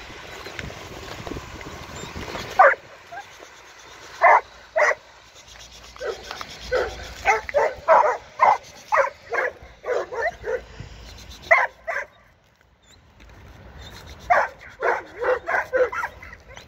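A large black dog guarding a bag on command, barking in short sharp barks: a few single barks, then quick runs of barks with a short pause between them.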